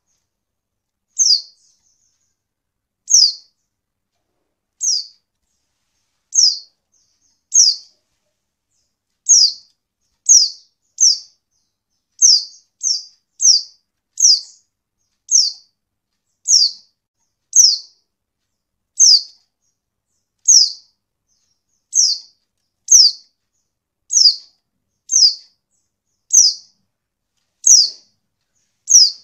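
Short, high, thin calls of a white-eye (pleci), each note sliding down in pitch, repeated roughly once a second and sometimes in quick pairs or threes. The uploader presents them as a female's calls, used to prompt a reluctant male to start singing.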